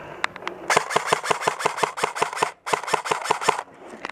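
Airsoft gun firing a rapid string of shots, about six or seven a second, in two runs with a short break in the middle.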